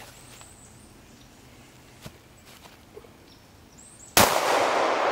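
A single shot from a Buffalo Cartridge BRG9 9mm pistol about four seconds in, a sharp crack whose report fades out slowly over the next second or two.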